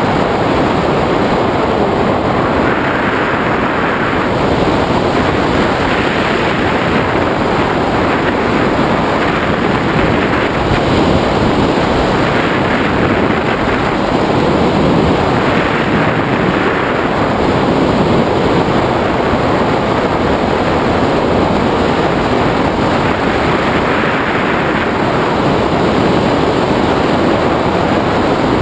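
Loud, steady rush of airflow buffeting the microphone of a camera mounted on a tandem hang glider in flight, swelling and easing slightly every few seconds.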